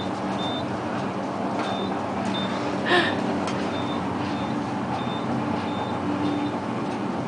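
Steady rushing hum of a high-speed elevator cab descending, with a faint short high tone repeating about every half second and a single knock about three seconds in.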